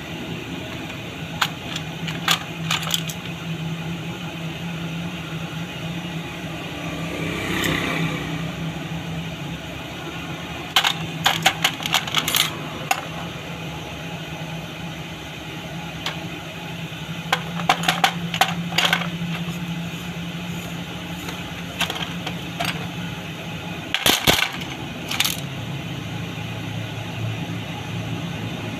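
Small metal parts of a dismantled diesel fuel injection pump clinking against one another and the metal basin as they are handled, in scattered sharp clicks and short rattling clusters. A steady low hum runs underneath.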